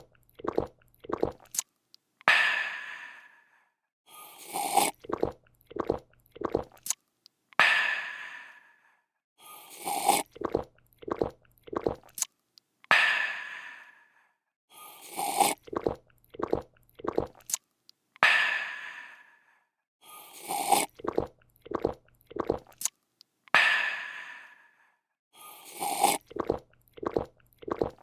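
A person slurps a drink, gulps it down in several short swallows, then lets out a long refreshed "aah". The same sequence loops about every five and a half seconds, five times over.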